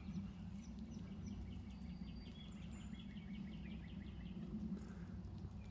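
A small bird singing a fast trill of short, repeated down-slurred notes for about two seconds, starting about a second and a half in, with a few faint whistled notes from other birds. Under it runs a steady low rumble.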